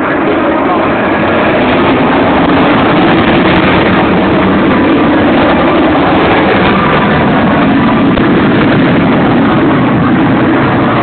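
Avro Vulcan B2's four Olympus turbojets, a loud, steady jet roar overloading a phone microphone, swelling slightly a couple of seconds in.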